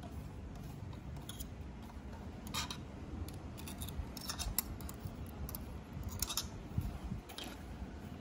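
Light handling sounds of threading a five-thread overlock machine: a scattering of short, sharp snips and rasps as the threads are pulled through the guides and worked with a metal tool, over a steady low hum.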